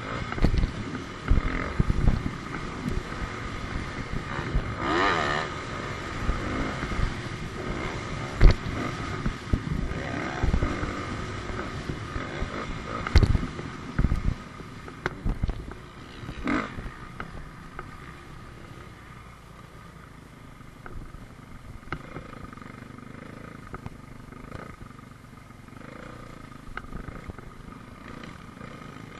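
Dirt bike engine running and revving under the rider, picked up by a helmet camera, with several sharp knocks in the first half. About two-thirds of the way through it drops to a quieter, lower running.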